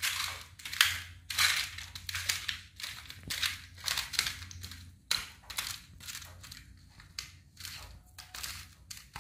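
Hands mixing raw fish steaks in a steel plate: a run of short wet rubbing strokes, about two a second, growing fainter in the second half.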